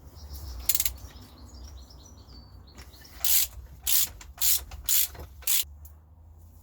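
A ratchet spanner being worked on the alternator's bolts: a series of short ratcheting strokes, about two a second, over a low steady hum.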